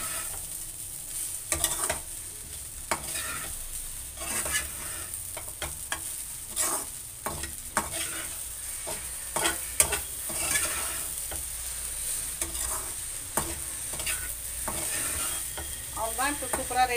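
A metal spatula stirring and scraping flattened-rice upma around an aluminium kadai, with irregular scrapes and taps against the pan over a steady light sizzle of hot oil.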